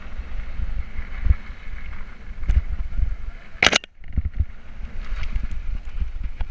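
Mountain bike rolling over a rough dirt trail, heard from an action camera on the bike: wind on the microphone over a low rumble and rattle from the bumps. Just past halfway comes a brief loud burst of noise, then the sound cuts out for a moment before the rumble returns.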